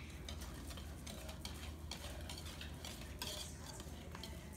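Hand whisk beating cake batter in a mixing bowl: faint, quick, irregular strokes with light clicks of the whisk against the bowl.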